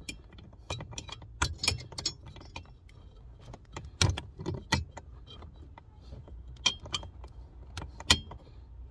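A steel socket on an extension twisted and worked around inside the end of an aluminium heater core tube to round out its opening, making irregular metallic clicks and scrapes, with sharper knocks about four seconds in and near the end.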